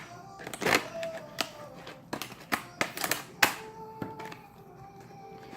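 Packaging being opened by hand: irregular sharp clicks, rustles and crinkles, with a few louder snaps around the middle.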